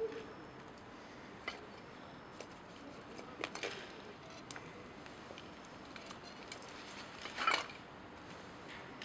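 Quiet night-time railway station ambience with a faint even background hiss and scattered short clinks and knocks, the loudest two clusters coming about three and a half and seven and a half seconds in.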